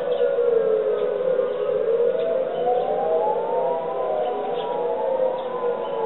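Several industrial warning sirens wailing together on a test, their tones slowly falling and rising out of step with each other, one climbing from a low dip to a high pitch over about three seconds.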